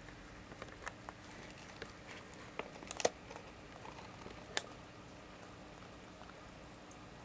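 Aquarium air-driven box filter running: a faint steady hum and hiss with a scatter of small bubbling clicks and pops, loudest about three seconds in and again at about four and a half seconds.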